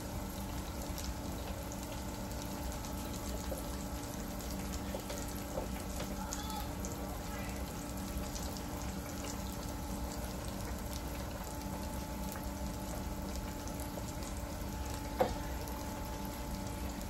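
Breaded pork chops deep-frying in hot oil in an electric deep fryer: a steady sizzle with fine crackles, over a faint steady low hum.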